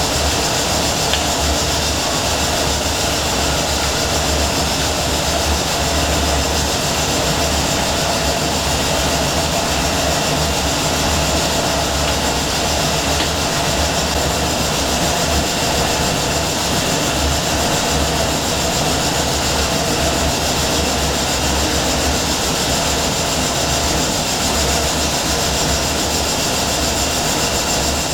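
Triple-expansion steam engines of the steamship SS Shieldhall running, heard inside the engine room as a loud, steady, even mechanical din.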